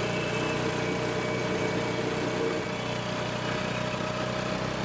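Motor scooter engine running steadily amid road traffic.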